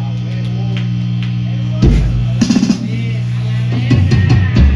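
Live punk band between songs: a steady low drone from the amplifiers, then the drum kit comes in about two seconds in with loud bass drum and cymbal hits, a quick run of strokes, and more hits near the end as the next song starts.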